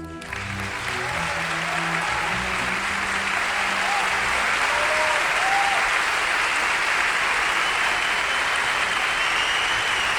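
Large audience applauding and cheering at the end of a sung piece, the applause building over the first couple of seconds and then holding steady. The last low notes of the accompaniment fade out under it in the first few seconds.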